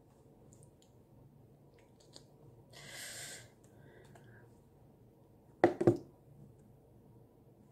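Small handling clicks as a little object is fiddled with in the hands, a short hissing rush about three seconds in, and two sharp knocks in quick succession near six seconds in.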